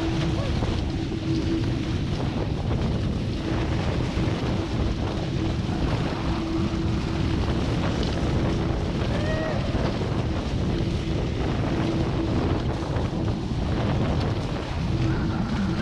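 Wind buffeting the microphone over water rushing and splashing along a Hobie 16 catamaran's hull as it sails at speed through chop. A steady hum comes and goes throughout.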